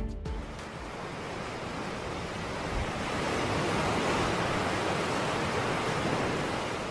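Sea surf washing in a steady rush that swells about three seconds in and eases off near the end.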